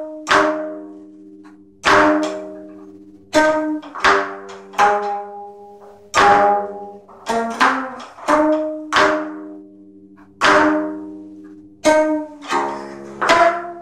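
Geomungo, the Korean six-string zither, played solo: the bamboo plectrum strikes the strings in unevenly spaced strokes about once a second, each a sharp knock followed by a low twanging tone that rings and fades.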